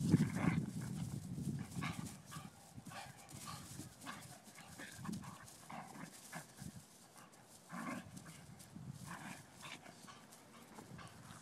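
A Vizsla and a ten-week-old blue-nose pit bull puppy play-fighting, with short dog sounds coming every second or so. They are loudest and thickest at the start.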